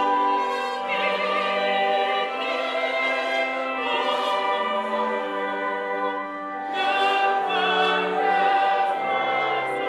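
A choir singing in several-part harmony, holding long sustained chords.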